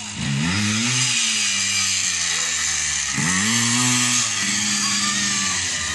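Dirt bike engine revving as it rides past, its pitch climbing in two bursts of throttle, near the start and again about three seconds in.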